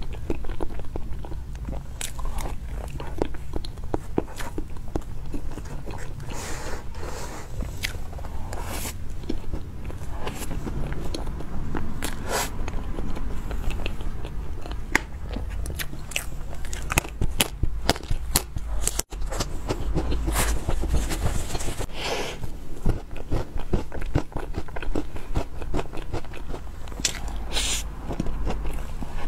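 Close-miked eating sounds of a matcha chestnut cream cake being chewed: many short, wet mouth clicks and smacks as soft sponge and cream are eaten off a spoon.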